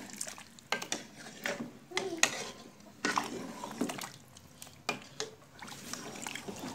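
A steel ladle stirring trotters in thin curry gravy in an aluminium pot: the liquid swishing, with repeated knocks of the ladle against the pot.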